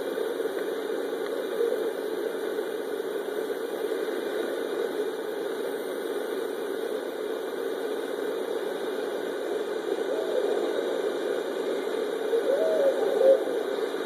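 Barred owls hooting: a couple of hoots about ten seconds in and a louder run of hoots near the end, over a steady low hum.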